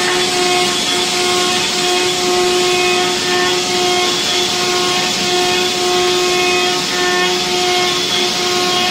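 Fidia GTF/R gantry milling machine with an M5E head rough-milling a large metal cylinder: a steady cutting whine of several held tones over a constant hiss of cutting and coolant spray.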